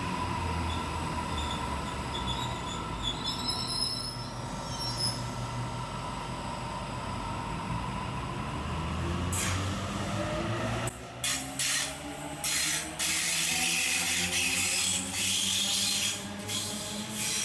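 Sydney Trains electric double-deck suburban train at a station platform, with a brief high wheel squeal a few seconds in. From about ten seconds in, the traction motors set up a whine that rises in pitch as the train pulls away, over loud running noise.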